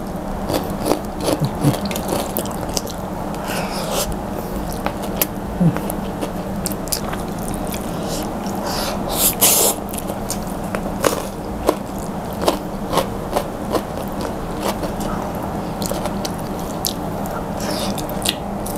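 Close-up eating sounds: a person biting and chewing crispy fried fish and raw green vegetables, with many short sharp crunches and mouth clicks at an uneven pace, over a steady low hum.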